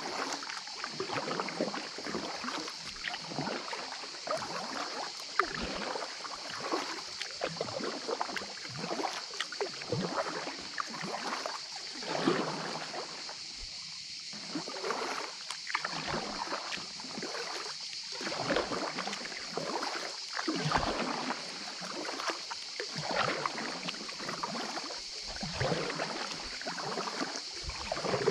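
Kayak paddle strokes dipping and splashing in calm water, about one a second, with a short lull about halfway through. A steady high hiss runs underneath.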